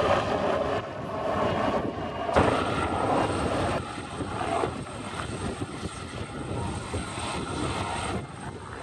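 Helicopter turbines and rotor blades running: first a helicopter flying overhead, then, after a sudden change about two seconds in, helicopters running on the ground with a steady high turbine whine, among them a Los Angeles Fire Department AgustaWestland AW139.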